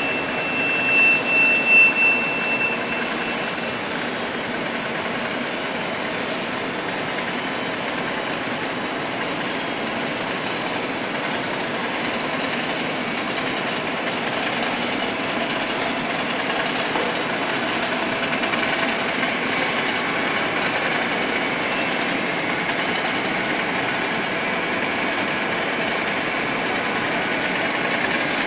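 KALPVRUX SLR 07 surface slitter rewinder running with 28-micron LD polyethylene film: a steady mechanical whir and hiss. A high whine and a few louder surges come in the first couple of seconds, then the running noise holds even.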